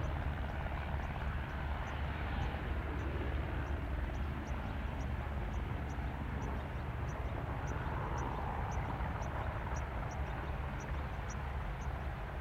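Heavy diesel truck engines running at low speed as the trucks drive past, a steady low rumble. Faint regular high ticking, two or three a second, sits above it.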